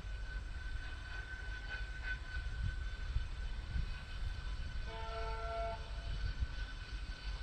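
Diesel locomotive sounding its multi-tone horn once, a chord lasting about a second, about five seconds in, over a low engine rumble and a steady high tone.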